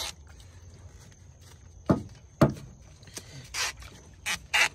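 Hands working a rubber coolant hose and plastic reservoir parts free under a car hood: two sharp knocks about two seconds in, then a few short scraping rubs near the end.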